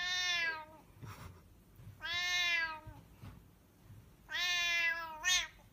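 Domestic cat meowing three long times, about two seconds apart, with a short rising cry right after the third. It is protesting at a hand reaching toward its head.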